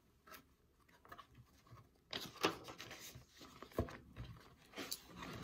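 A thin-covered picture book being opened and its pages turned: soft paper rustles and handling noises, with one light knock a little after the middle.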